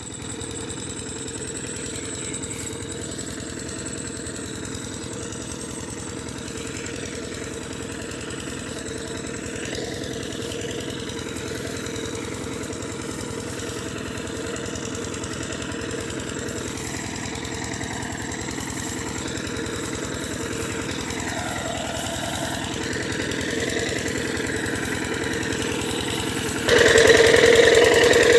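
Engine of an irrigation pump set running steadily while pumping water into a paddy field. It grows gradually louder, then much louder about 27 seconds in.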